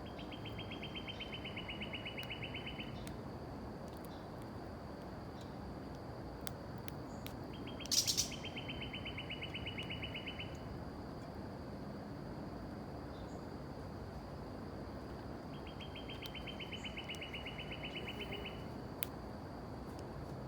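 A songbird sings the same rapid, even trill three times, each about three seconds long, over a faint steady high whine. A sharp click comes just as the second trill starts.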